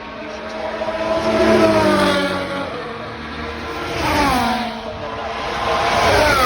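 Formula 1 cars' turbocharged V6 hybrid engines at high revs, passing one after another. The engine note swells and then drops in pitch as each car goes by, about three passes.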